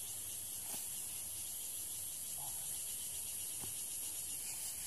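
Steady high-pitched insect chorus, with a couple of faint ticks.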